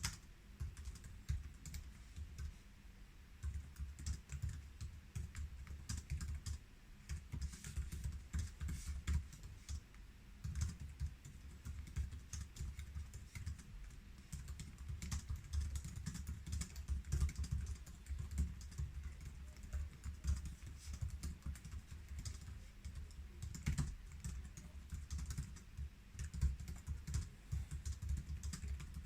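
Continuous fast typing on the built-in keyboard of a 2013 13-inch MacBook Pro Retina: rapid, irregular key clicks with soft thuds, a few keystrokes louder than the rest.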